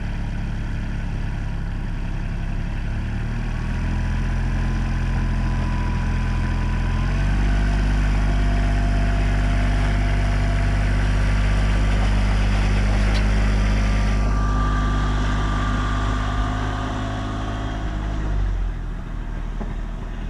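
Kubota RTV diesel utility vehicle's engine running steadily, revving up in two steps about 3 and 7 seconds in and holding high as the tracked machine climbs the ramps into a trailer, then dropping back near the end.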